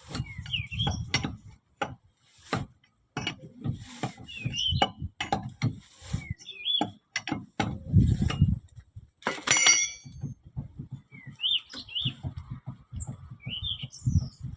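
Irregular knocks and clunks from a 1990 VW Vanagon's front wheel hub being worked by hand to check the wheel bearing for play, with small birds chirping throughout. The play points to a worn or loose wheel bearing.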